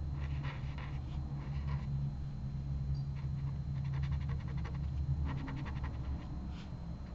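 Dried-out fiber-tip brush pen scratching across hot press watercolor paper in short strokes, with two quicker scratchy runs past the middle. A steady low hum runs underneath.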